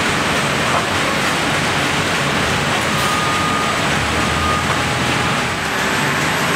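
Steady machinery noise from an automated robotic palletizing line with roller conveyors, with two short high tones about three and four seconds in.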